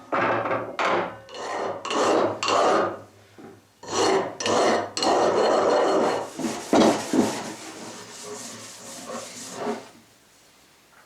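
Hand file being worked in repeated back-and-forth strokes, roughly one stroke every second. After a short pause the strokes return, then a longer scrape, and they die away near the end.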